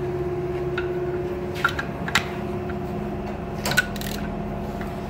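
A few light metal clicks and taps as a special camshaft tool is fitted to the camshafts in an open BMW S1000RR cylinder head, over a steady background hum.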